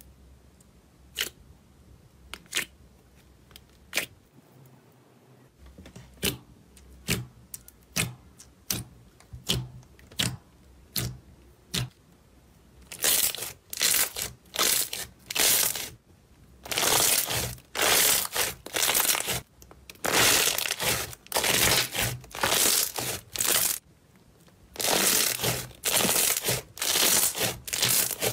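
Slime being pressed and squeezed by hand: sparse sharp pops and clicks at first, then, about halfway through, a run of loud crackling squishes, roughly one a second.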